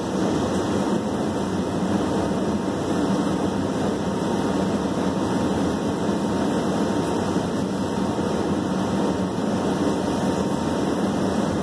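Steady mechanical hum of a Metro Red Line subway car standing at a station with its doors open, its onboard equipment running, with a faint steady high tone over it.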